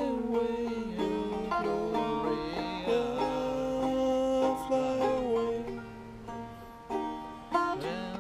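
A five-string banjo played clawhammer style, picking out a folk tune with steady plucked notes that dip a little quieter about two-thirds of the way through.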